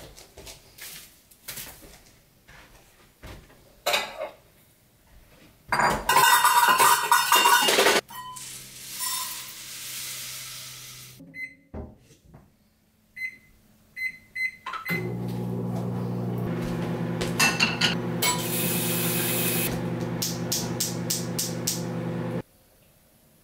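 Kitchen sounds of breakfast being made: scattered clicks and knocks, a loud rushing noise for about two seconds, a few short electronic beeps, then an appliance humming steadily for about seven seconds before cutting off suddenly near the end.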